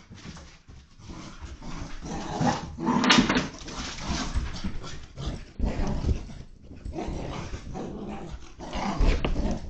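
Portuguese water dog puppy growling and grumbling in play, a happy, excited growl rather than an aggressive one, in rough bursts loudest about three seconds in and again near the end. Paws thud on the floor and couch as she runs.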